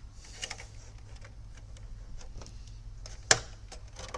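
Light ticks and taps of handling on a workbench, with one sharp click a little past three seconds in, over a steady low electrical hum.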